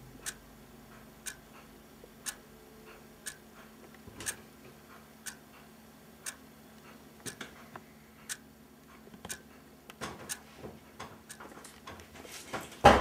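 Clock ticking steadily, about one tick a second with fainter ticks between, then a sudden loud noise just before the end.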